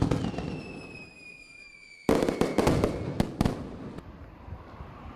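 Firework whistle and bangs: a sharp pop, then a whistling tone falling slowly for about two seconds, then a rapid cluster of cracks and bangs that fades out.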